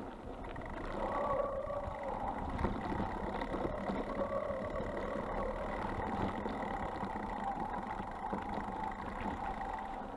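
Bicycle rolling down a loose gravel track, heard through a frame-mounted action camera's microphone: a steady rumble of tyres on gravel with wind noise and the rattle of the loaded bike.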